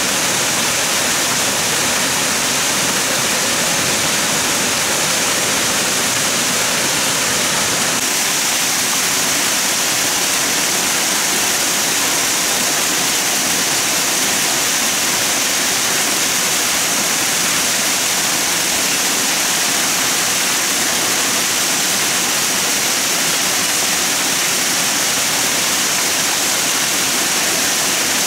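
Steady rush of fast-flowing water, an even hiss with no break; its tone shifts slightly about eight seconds in.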